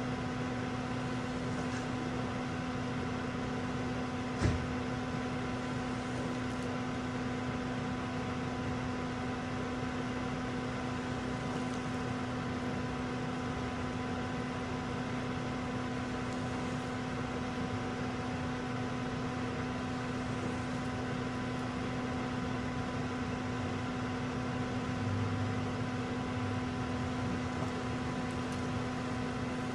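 Steady mechanical hum of a parked 2012–2019 Toyota Yaris hatchback standing with its windshield wipers switched on, with one sharp click about four and a half seconds in.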